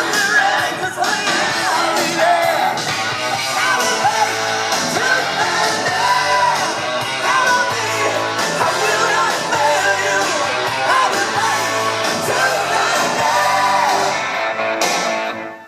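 A rock song with a singing voice and guitars, played back from a record on a Technics SL-QD22 turntable. The music dips briefly near the end.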